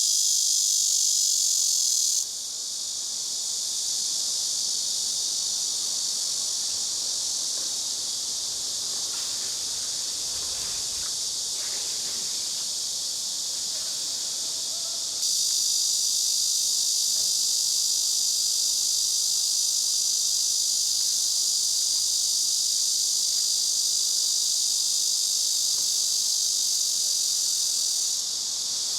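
A dense chorus of summer insects making a steady, high-pitched buzz. It drops abruptly a couple of seconds in and jumps back up about halfway through.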